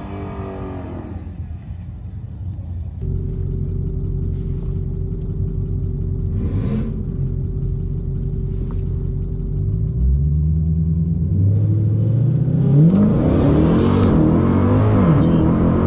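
Dodge Challenger Hellcat Redeye's supercharged 6.2-litre Hemi V8: revving under a burnout in the first second or so, then idling with a steady drone heard from inside the cabin, and from about ten seconds in revved up and down repeatedly, getting louder.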